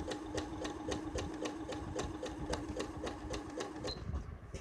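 Button-operated electric sewing machine sewing a zig-zag stitch at medium speed. The needle clicks about five times a second over a steady motor hum. The machine stops about four seconds in.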